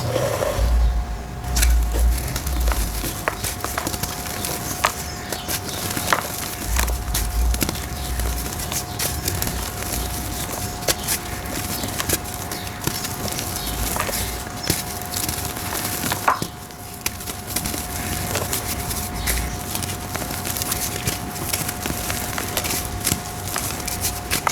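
Dried red brick-dirt shapes being crumbled: a dense, continuous run of small crunches, crackles and snaps, with occasional low thumps.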